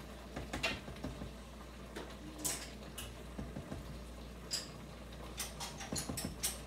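A utensil scraping sauce out of a jar, with light clinks and taps against the jar and the cooker pot: a few single clicks, then a quick run of taps near the end.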